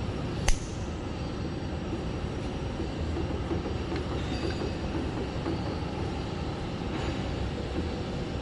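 Steady rumbling hum of factory machinery, with one sharp click about half a second in.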